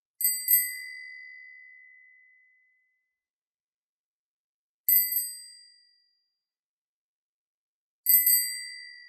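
Bicycle handlebar bell rung three times, a few seconds apart, each ring a quick double ding that fades away. The first ring lingers about two seconds, the second dies out sooner, and the third is still fading at the end.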